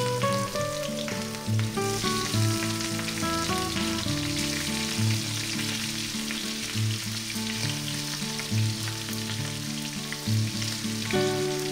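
Rohu fish head pieces sizzling as they shallow-fry in hot oil, a steady crackling hiss. Background music with a regular low beat plays over it.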